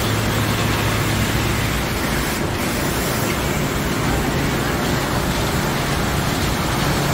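Automatic tunnel car wash running: a loud, steady hiss of its equipment with a low hum underneath.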